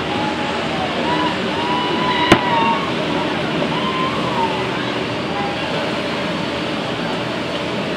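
Dense, steady drone of many outboard motors as a fleet of small fishing boats races at speed across the river, with engine tones rising and falling as boats pass. A single sharp bang cracks out about two seconds in.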